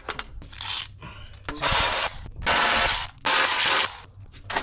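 Cordless ratchet run in three short bursts of about 0.7 s each, spinning nuts on the running-board mounting brackets. A few light knocks come first.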